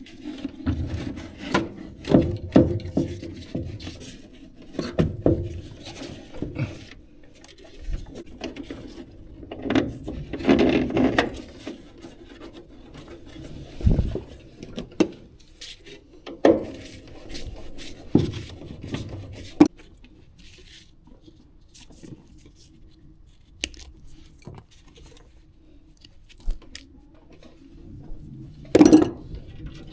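Irregular handling noises from a technician working on a furnace: scattered sharp knocks and clicks with short rubbing and scraping, as tools and parts are handled, over a faint steady hum.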